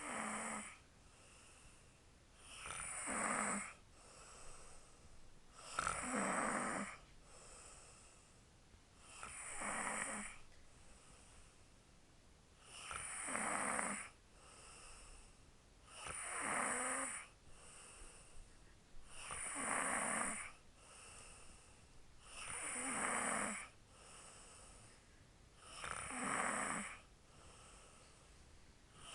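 A woman snoring loudly in her sleep: a long snore about every three seconds, nine in all, with quieter breathing between.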